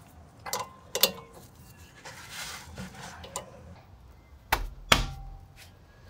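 Sharp knocks and clicks of tools and brake parts being handled during a brake pad change: a couple in the first second, then a louder pair about a second before the end.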